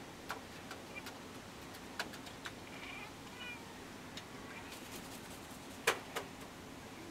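Hooded crow's beak pecking and tapping at food in a terracotta clay dish: a series of sharp clicks, the loudest about six seconds in. Faint high chirping calls in the background about halfway through.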